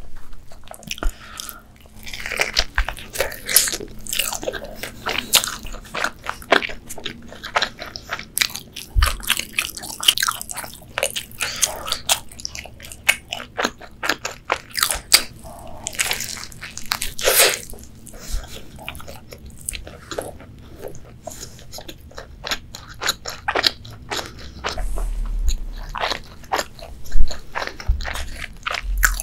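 A KFC spicy chicken sandwich being bitten and chewed: dense, irregular crunching from the fried chicken breading, with a few low thumps, the loudest near the end.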